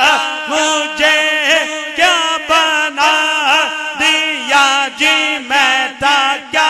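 Unaccompanied male voice chanting a devotional naat refrain in short, evenly repeated sung phrases, about two a second.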